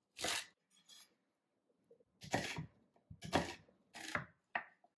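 Chef's knife cutting celery stalks and then an onion on a wooden cutting board: about six separate cuts, each a short crisp stroke, the loudest in the middle.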